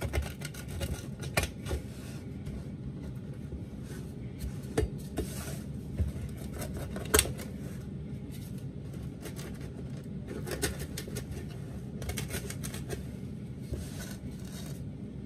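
Spatula scraping and tapping against a baking pan as it works under a soft brownie to lift it out, in irregular scrapes and clicks. One sharper knock comes about seven seconds in.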